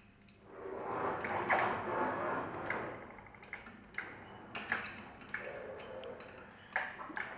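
Overhead chain hoist's chain and hook rattling and clinking against the lifting eye on a centrifugal pump shaft: a spell of dense metallic rattling in the first few seconds, then a string of sharp single clinks.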